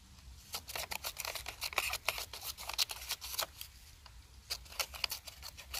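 The small spring-loaded scissors of a Ruike LD42B multitool snipping a scrap of paper: an irregular run of quick, sharp clicks and snips.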